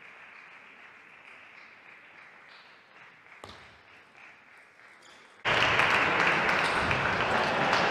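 Faint clicks of a table tennis ball struck back and forth during a rally, over low hiss. About five and a half seconds in, the sound cuts suddenly to much louder hall noise with voices.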